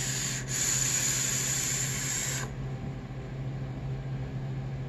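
Steady hiss of air drawn through a Juggerknot V2 dual-coil top-airflow RTA as a vape is taken, lasting about two and a half seconds with a brief break about half a second in. The tank is a little on the noisy side when drawn.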